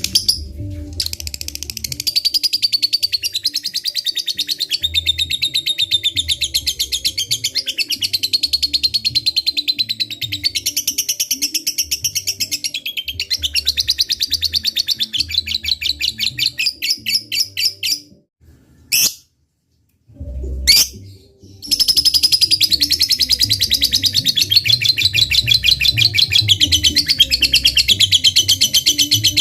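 Lovebird giving its long, rapid chattering song ("ngekek"): fast runs of high, repeated notes that break off for a few seconds about two-thirds of the way through, then start again.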